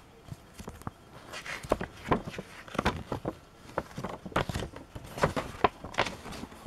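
A folded paper instruction leaflet rustling and crackling as it is handled and unfolded by hand, in a quick irregular run of crinkles starting about a second in.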